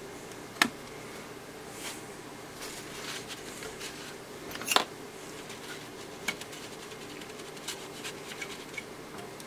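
Flux residue being cleaned off a freshly soldered circuit-board track by hand: scattered small scratching clicks, with two sharper clicks about half a second in and near the middle. A steady low hum runs underneath.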